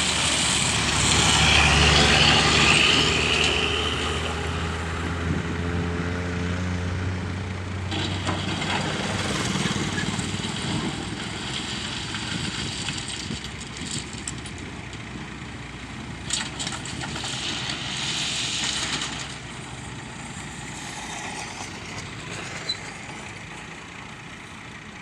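A heavy diesel engine running, loudest in the first few seconds with a hiss over it, then fading to a fainter rumble.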